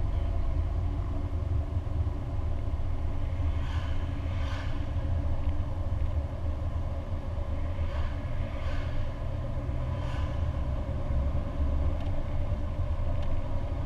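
Inside the cabin of a Lancia Delta HF Turbo driving at a steady speed: a constant low engine and road rumble.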